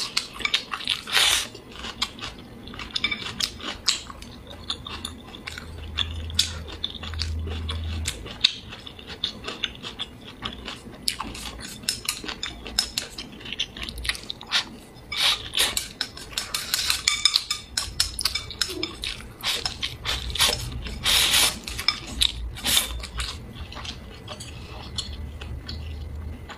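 Wooden chopsticks clicking and scraping against a ceramic bowl as rice and braised pork are shovelled into the mouth, with chewing and wet mouth sounds of close-up eating.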